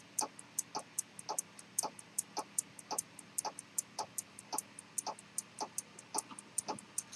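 Ticking of a c1890 pocket chronometer movement running with a detent escapement: a steady, fast train of sharp clicks, several a second, alternating brighter and duller ticks.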